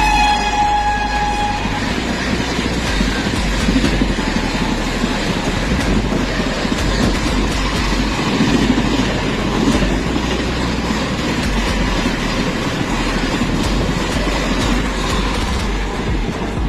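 Express train passing at speed, about 130 km/h. In the first second or two its horn drops in pitch and then stops; after that the coaches rush past with a steady roar and clickety-clack from the wheels on the rails.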